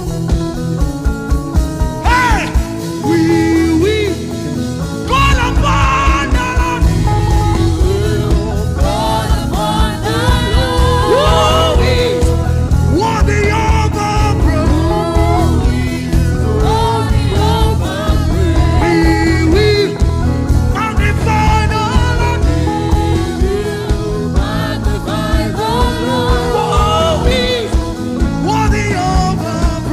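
Live gospel worship band playing with a steady beat and a gliding lead melody line over it; the bass drops out briefly a few seconds in.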